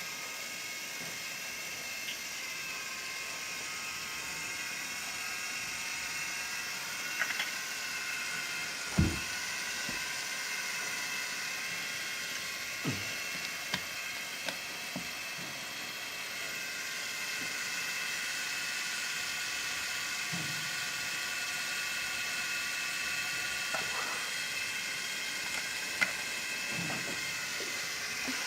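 Steady whirring hum of a small machine over a hiss, with a few scattered light knocks and clicks.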